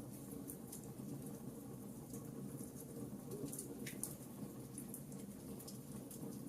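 Campfire burning with a steady low rumble and frequent small sharp crackles and pops of the wood, one longer crackle about four seconds in.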